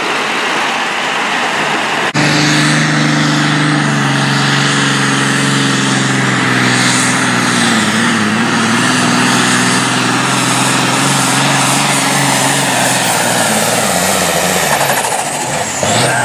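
Case altered farm stock pulling tractor's engine running hard under full load while dragging the weight sled. It is a steady engine drone that cuts in abruptly about two seconds in, dips in pitch briefly around the middle, and fades near the end.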